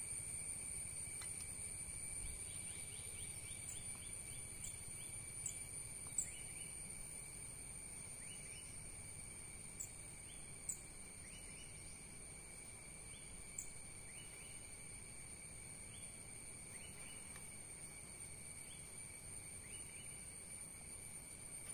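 Steady high-pitched insect trilling, with short chirps repeating every second or so and a few sharp ticks.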